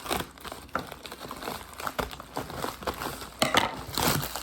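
Packaging crinkling and rustling as a package is worked open by hand, in irregular crackles that grow louder near the end.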